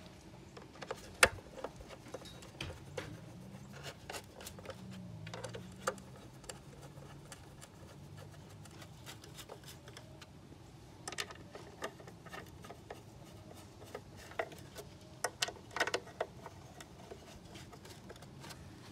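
Scattered light clicks and rubbing from a hand pressing and sliding over the plastic deck of a Razor Power Core E90 electric scooter. The sharpest click comes about a second in, with a cluster of clicks about three quarters of the way through.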